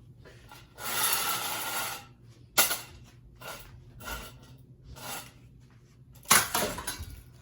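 Ceiling fan running with a steady low hum while it is being smashed: a scraping rasp lasting about a second, then several separate knocks, and a louder burst of clattering near the end.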